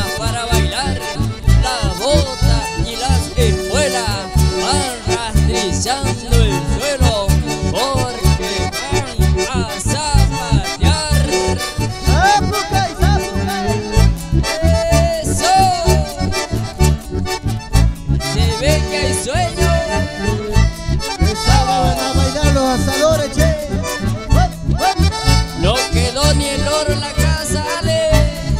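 Instrumental passage of Argentine folk dance music: bandoneón and button accordion play a wavering, ornamented melody over strummed acoustic guitar and a steady, evenly pulsing low beat.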